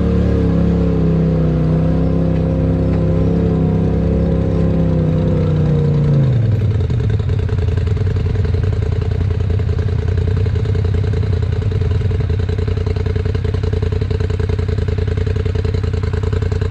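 Polaris RZR side-by-side's engine running at light throttle, then dropping to a steady idle about six seconds in as the machine comes to a stop.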